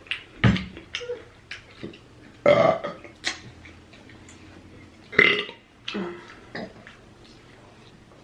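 A woman burping loudly three times while eating, about half a second, two and a half and five seconds in, with short wet mouth-smacking and chewing clicks in between.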